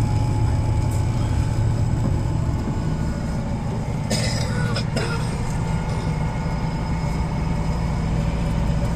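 Tour bus engine running with road noise, heard from inside the cabin as a steady low hum. A brief hiss comes about four seconds in, followed by a couple of clicks.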